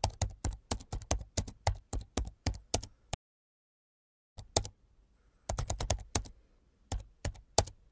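Computer keyboard typing sound effect: quick key clicks, about five a second, stopping for about a second just after the midpoint and then going on in short runs.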